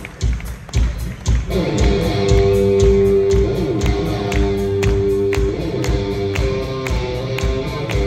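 Live punk rock band starting a song: drums alone at first, then electric guitars and bass come in about a second and a half in and the full band plays on.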